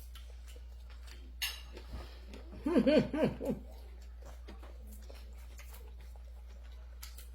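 A short wordless hummed vocal sound about three seconds in, over a steady low hum, with a light click about a second and a half in.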